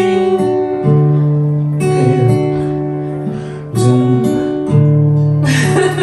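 Acoustic guitar strummed, a handful of chords each struck and left to ring, changing roughly every second or two.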